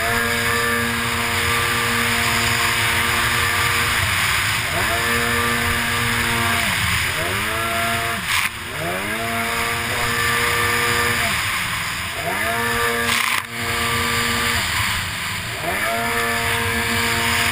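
Racing jetski engine at high revs, its pitch dropping and climbing again about four times as the throttle is eased and reopened through turns, over a steady hiss of spray and wind. Two brief knocks, about eight and thirteen seconds in.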